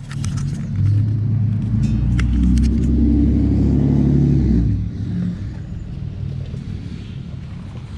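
A motor vehicle's engine running close by: a low pitched rumble that swells within the first second, holds for about four seconds, then drops away about five seconds in.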